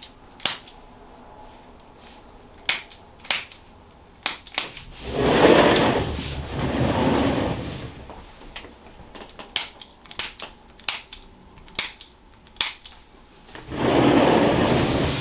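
Scattered sharp clicks at irregular intervals, and twice a longer rustle lasting two to three seconds.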